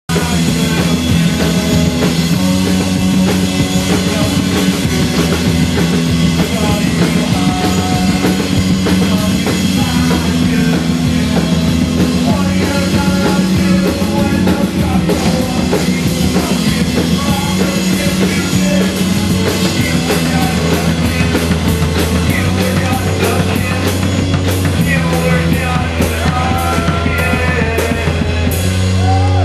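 Live punk rock band playing loudly through a PA: pounding drum kit, sustained bass notes and shouted vocals.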